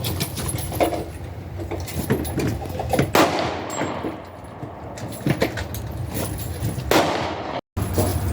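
Two rifle shots about four seconds apart, each trailing off in an echo, over steady low background noise and small clicks.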